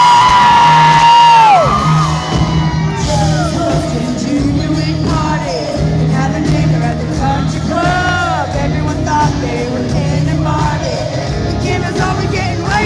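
Live country band and singer in concert: a long high note held for about a second and a half, sliding down at its end, then the band plays on while the audience whoops and cheers.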